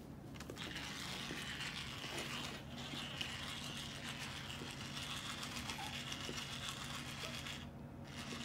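Battery-powered vibrating cat toy buzzing and rattling steadily on the carpet, dropping out briefly twice.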